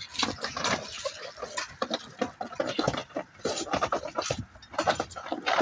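Irregular scraping and knocking: a roped bull's hooves scuffling on a tiled floor as it struggles against the ropes.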